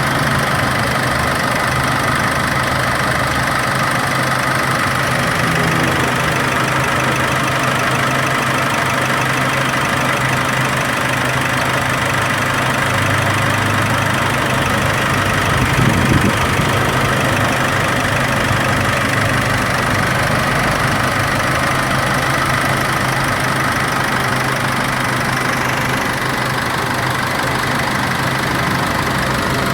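Nissan YD25DDTi 2.5-litre four-cylinder turbodiesel idling steadily while air is bled from its cooling system. There is one brief thump about halfway through.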